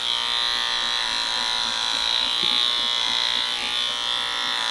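Wahl Arco cordless pet clippers running with a steady hum as they shave the fur along a dog's belly.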